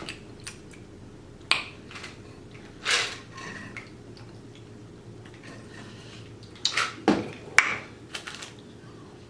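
Scattered light clicks and taps of tableware being handled, with a softer rustling sound about three seconds in and a cluster of sharper clicks near the end.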